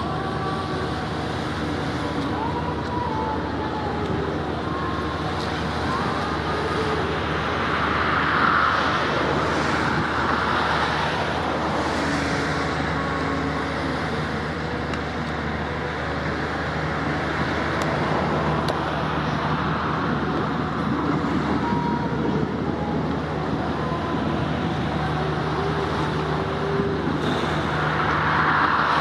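Steady road traffic noise, with passing vehicles swelling louder now and then, about a third of the way in and again near the end.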